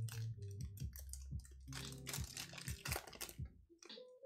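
Foil Topps Finest trading-card pack being torn open and its wrapper crinkled by hand: a quick run of crackles and clicks, densest in the middle.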